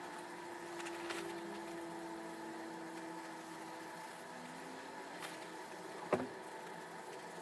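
Cloth rubbing over the leather and metal of a WW1 M1915 pickelhaube during cleaning, with a few light clicks and a sharp knock about six seconds in. A faint drone sliding slowly in pitch lies underneath.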